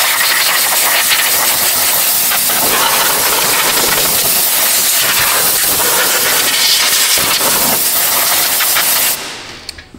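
Compressed-air blow gun hissing loudly as it blows dirt out of an empty car battery tray, cutting off about nine seconds in.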